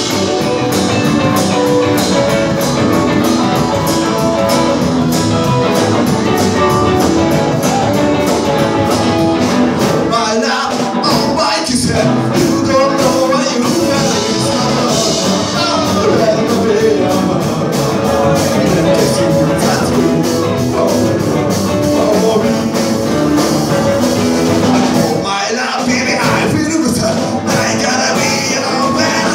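Live rock and roll band playing loud: a man singing over electric guitar, upright double bass and a driving drum beat.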